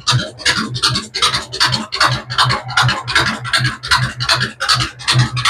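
Rapid back-and-forth scrubbing strokes on a surface, steady at about four a second.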